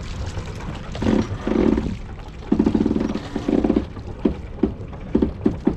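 Sailboat under sail with a steady wind-and-water rush, over which the boat creaks: several drawn-out groans, then a quicker series of short creaks near the end.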